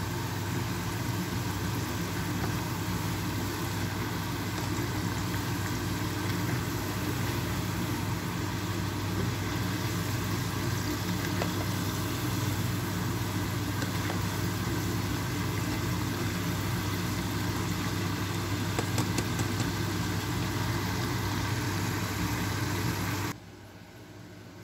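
Potato sticks deep-frying in a pot of hot oil: a steady sizzle with fine crackle over a low hum. It cuts off suddenly near the end, giving way to quiet room sound.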